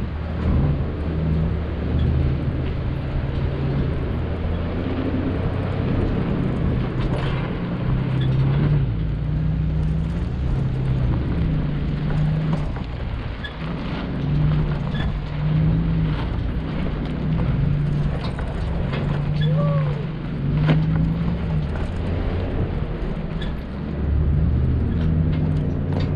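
Off-road truck engine running as the vehicle drives over rough ground, its pitch rising and falling with the throttle every second or two, with scattered knocks and rattles from the body.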